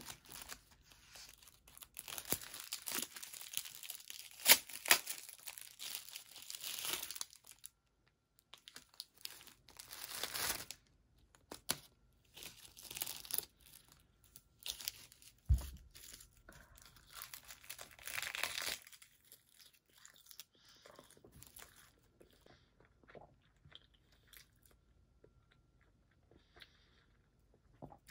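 Plastic film wrapper of a triangle kimbap being torn and crinkled open, crackling in several spells, the longest at the start, with a single dull thump about halfway through; the dried seaweed crackles and crumbles as it is handled. It quietens over the last several seconds.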